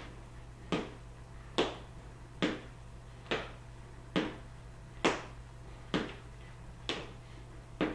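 A person's feet landing on a wooden floor during standing elbow-to-knee crunches, alternating legs. It makes a steady run of short knocks, a little over one a second.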